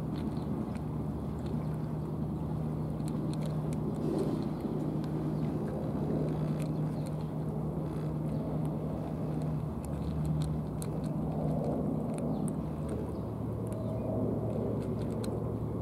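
An engine idling steadily, its hum settling to a lower pitch about three-quarters of the way through. Over it come faint crisp clicks of a cat crunching dry food.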